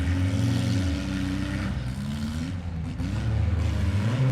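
Engines of demolition derby minivans and mini trucks running and revving, their pitch rising and falling several times.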